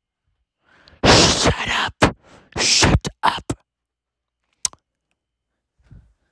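A person's breathy, whispered vocal sounds close to the microphone, a few short bursts in the first half, followed by a single sharp click.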